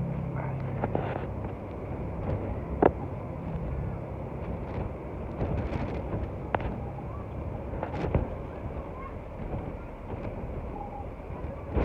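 Boat under way: a low engine hum under a steady rush of wind and water, with wind buffeting the microphone. There are a few sharp knocks, the loudest about three seconds in.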